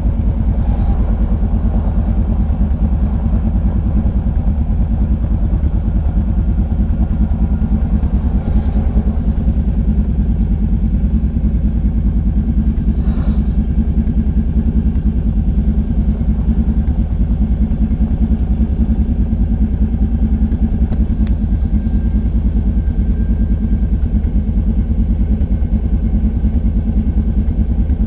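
ATV engine running steadily at low trail speed, heard up close from a camera on the quad's front rack, its firing pulses giving an even low chug.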